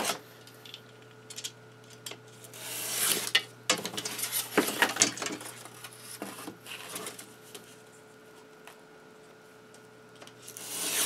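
A utility knife drawn along a steel ruler, slicing through foam board in two drawn-out cuts, one a few seconds in and one near the end. In between come sharp clicks and knocks as the ruler and the cut foam pieces are shifted and set down.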